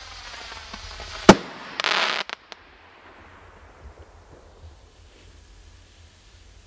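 Bring the Pain firework rockets: a sharp bang about a second in, then a brief rushing hiss and two small pops, fading to a faint hiss.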